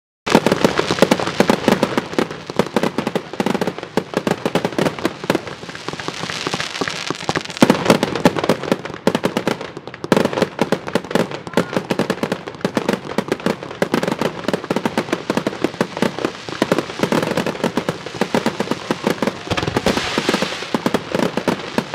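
Fireworks crackling densely and continuously, many sharp pops a second, with a few louder bangs about eight and ten seconds in.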